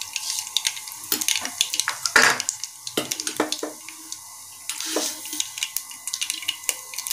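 Mustard seeds spluttering in hot oil in a pressure cooker during tempering: a steady sizzle with many sharp pops and crackles, and a louder burst about two seconds in.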